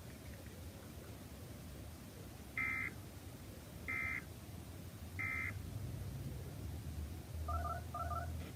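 Emergency Alert System End-of-Message signal: three short bursts of SAME digital data tones, each about a third of a second and roughly a second and a half apart, marking the end of the weather warning. Near the end come two quick double beeps.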